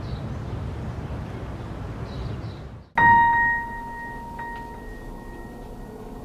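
Low, steady outdoor rumble with a couple of faint high chirps, then a sudden bell-like ding about three seconds in that rings on and slowly fades.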